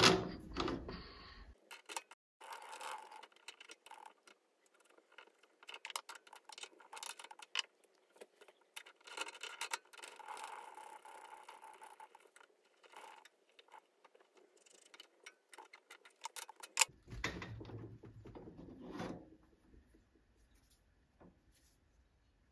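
Steel tool holders being fitted to and taken off a multifix quick-change tool post on a mini lathe: irregular metal clicks, taps and light scraping as a holder slides onto the post and is clamped with the post's lever.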